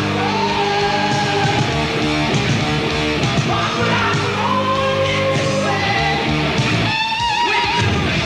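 Heavy rock band playing: distorted electric guitar, bass and drums under a male lead vocal singing long held notes. The low end drops out briefly near the end before the full band comes back in.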